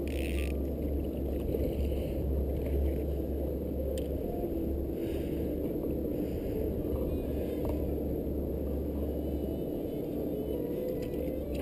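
Boat's motor running steadily as a low, even hum, with a few faint clicks from handling the rod and line.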